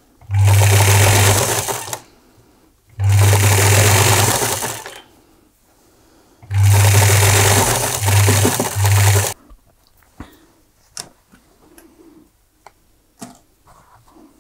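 Singer semi-industrial sewing machine running in three bursts of a couple of seconds each as it stitches a long seam, with a steady low motor hum. The last burst has two short stops. Afterwards there are only small clicks and rustles.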